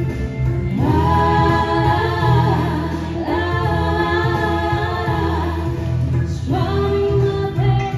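Two women singing together into microphones through a PA, holding long sustained notes in phrases over an instrumental accompaniment with a steady bass.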